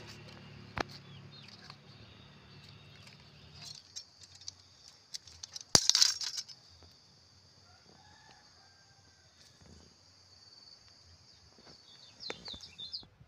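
Plastic grafting tape crinkling and snapping in sharp crackles as it is stretched and wound around a durian seedling's graft, loudest about six seconds in. A steady high-pitched drone runs behind it and stops suddenly near the end.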